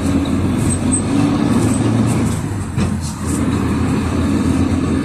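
Cabin noise of a PAZ 4234-05 bus under way: its Cummins ISF3.8 four-cylinder diesel running steadily, with road noise and a few light rattles of the body about two to three seconds in.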